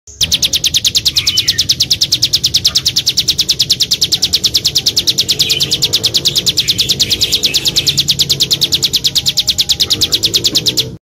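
A small songbird repeating one high, sharp note in a fast, even string, several notes a second, for about eleven seconds. The string starts and stops abruptly.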